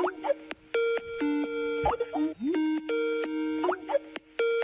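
Skype incoming-call ringtone: a looping electronic melody of short steady tones broken by quick rising bloops, the signal of an incoming Skype call.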